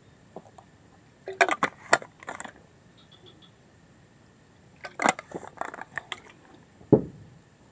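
Two bursts of sharp close clicking and crunching, a second or so each, then a single thump near the end.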